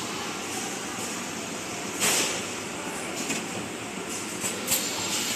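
Automatic solar panel framing machine running: a steady mechanical din broken by short, sharp hisses, the loudest about two seconds in and several smaller ones later.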